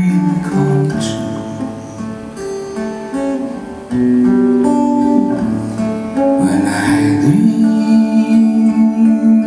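Acoustic guitar music, a melody of long held notes over the guitar accompaniment. It gets suddenly louder about four seconds in.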